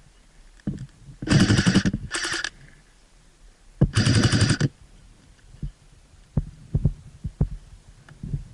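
Airsoft gun firing on full auto in three bursts of rapid shots: a burst of under a second, a short one, then another of under a second. After them come scattered single knocks and thuds.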